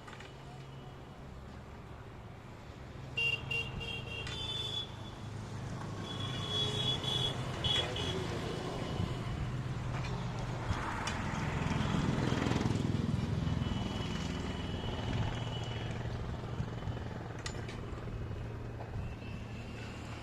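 Road traffic: vehicle engines running steadily, with a few short horn toots in the first half and one vehicle passing close about twelve seconds in.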